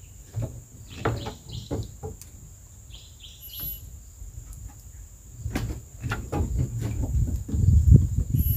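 Scattered knocks and thuds, with a short run of bird chirps about three and a half seconds in. From about five and a half seconds a low rumble builds and grows louder toward the end.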